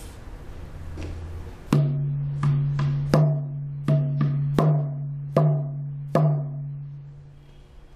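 Shamanic hand drum, a skin-headed frame drum, struck with a beater about nine times in a slow, uneven beat starting about two seconds in. Each stroke leaves a deep ringing hum that fades out near the end.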